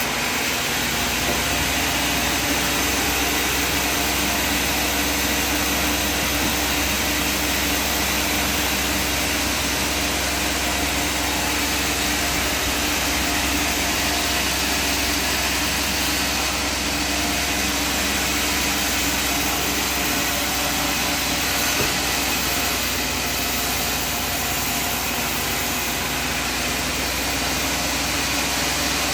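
Sawmill machinery running steadily: a constant drone with a few fixed tones over a broad hiss, unchanging throughout.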